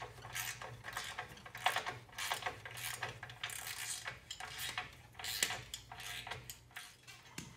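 Hand ratchet wrench clicking in short, irregular runs of strokes while tightening the front clamp nut of a slip-on exhaust muffler, with metallic clinks of the tool on the clamp.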